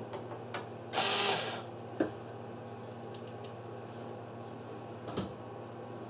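Mightymig 150 MIG welder switched on and running: a steady transformer and fan hum, now that its power fault at the plug is fixed. A short burst of crackling hiss comes about a second in, and sharp clicks come at about two and five seconds as the torch is worked.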